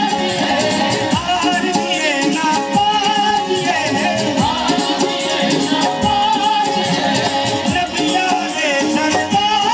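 Live qawwali-style devotional song: a male lead voice singing over a harmonium's sustained chords, with backing voices and a steady percussion beat.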